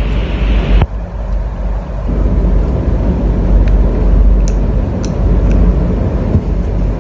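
Loud, steady, low-pitched background noise with no clear source, and a few faint clicks about halfway through.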